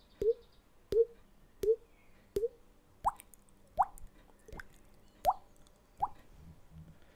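A person's mouth making a series of short popping sounds, about ten in all, evenly spaced about 0.7 seconds apart, like water drops. The first few are lower; from about three seconds in they are higher, each rising in pitch.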